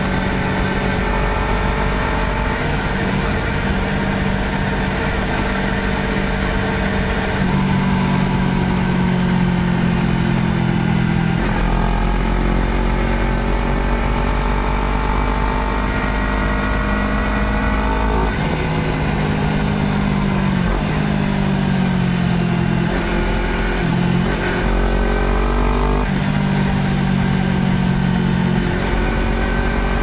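Honda CBR250RR's engine running under way as the bike is ridden, its note climbing in pitch and dropping back at a few gear changes, with steady wind rush over the on-board microphone.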